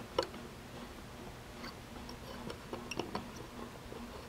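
Faint, scattered small metallic clicks as a hand-turned Recoil insert installing tool winds a 6 mm × 1 wire thread insert into a tapped hole in a metal bar. The clicks come a few at a time, with a small cluster about three seconds in.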